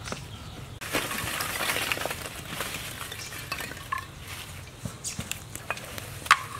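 Lumps of charcoal tipped out of a plastic bag onto the ground: a rattling clatter with bag rustle starting about a second in and lasting a second or two, followed by scattered small clinks.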